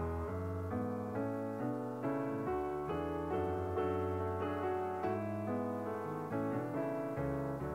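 Background piano music: a gentle melody of notes changing two or three times a second.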